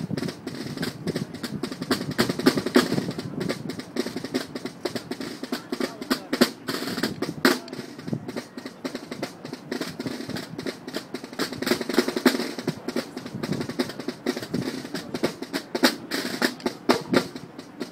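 Military band snare drums playing a fast drum passage with rolls and sharp accented strokes.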